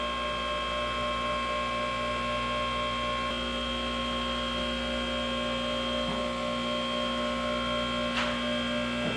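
A steady machine hum made of several fixed pitches that hold without change, with a faint tick about three seconds in.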